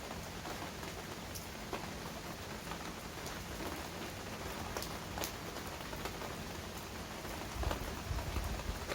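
Heavy rain falling steadily, with single drops striking sharply every second or so. A low rumble comes in near the end.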